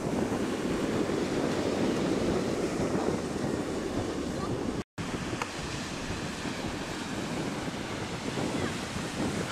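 Wind buffeting the microphone over the wash of small waves breaking on the shore. The sound drops out completely for a moment about five seconds in, at an edit.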